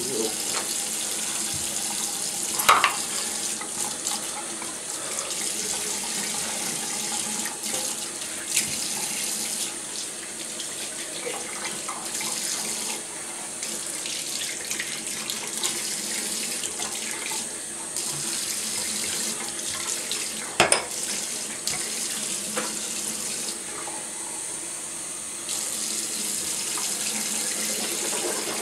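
Bathroom faucet running steadily into a ceramic sink basin, an even splashing hiss whose tone dulls for a couple of stretches as hands go under the stream. A few sharp knocks stand out, the loudest about three seconds in and about twenty-one seconds in.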